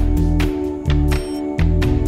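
Background music with a steady beat, held chords and a bass line.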